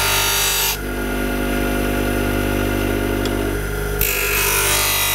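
Electric bench grinder running with a steady motor hum while a steel plane iron is ground on its wheel, a bright grinding hiss. The iron comes off the wheel less than a second in, leaving the motor humming alone, and goes back against the wheel about four seconds in, the grinding resuming.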